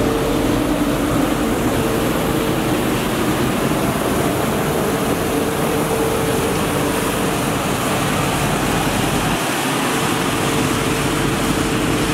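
Mercedes Arocs 1833 street-sweeper truck running while sweeping, its brushes and suction pickup working. A loud, steady rushing noise carries a constant whine throughout.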